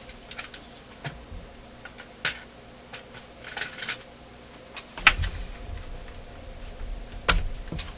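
Scattered clicks and light knocks of parts and test leads being handled on a radio chassis, with two sharper clicks about five seconds in and again near the end.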